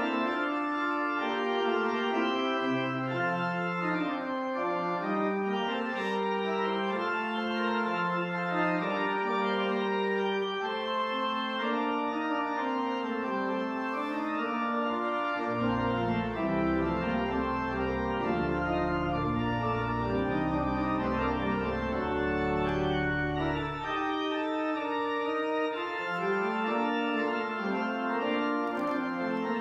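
Pipe or church organ playing sustained chords in a slow piece, with deep pedal bass notes held for several seconds about halfway through.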